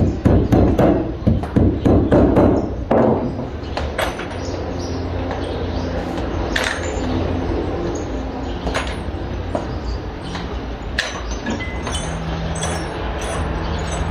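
Building-site work sounds: about three seconds of loud clattering and scraping, then scattered sharp knocks and clinks over a steady low hum.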